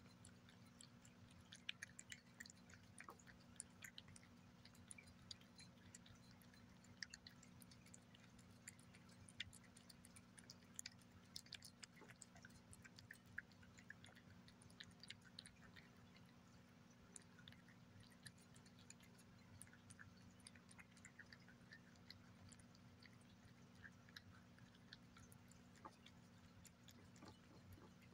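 Cat eating wet pâté from a glass saucer: faint, irregular wet clicks of lapping and chewing as its tongue works over the near-empty plate, over a low steady hum.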